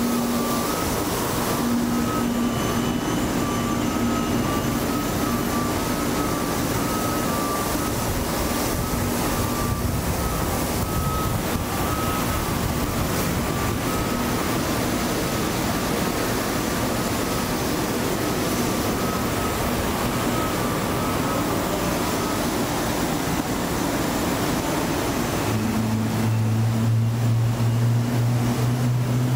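Steady, loud ramp machinery noise from aircraft refuelling equipment: a continuous rush with a steady hum running under it. About 25 seconds in, a deeper steady engine drone sets in.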